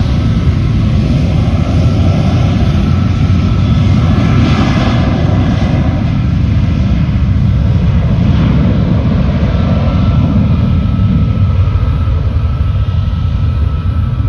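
Jet airliner engines running loud and steady: a heavy rumble with a thin whine held at one pitch through it.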